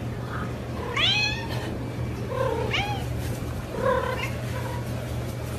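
A cat meowing three times, short calls about a second and a half apart, over a low steady hum.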